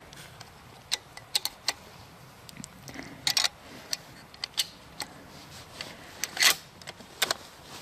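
Brass .243 cartridges being thumbed down into the magazine of a Savage bolt-action rifle through the open action: a string of sharp metallic clicks and snaps at irregular intervals, the loudest about six and a half seconds in.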